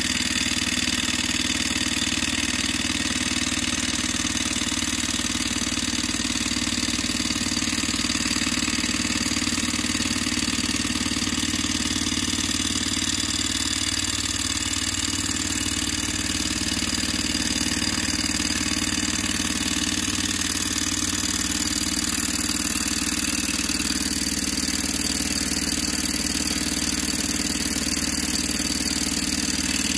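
Okmo Microcosm Rider-Ericsson hot-air pumping engine running steadily with its gas burner lit.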